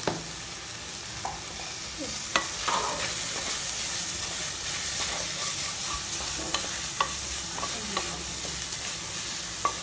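Onion-tomato masala sizzling as it fries in oil in an aluminium pressure cooker, stirred with a spatula that scrapes and taps against the pan every second or so.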